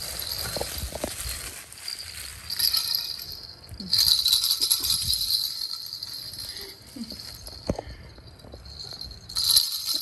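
Plastic baby rattle toy, a ring of open-cage balls with small bells inside, jingling as it is shaken in several bouts; the longest bout starts about four seconds in.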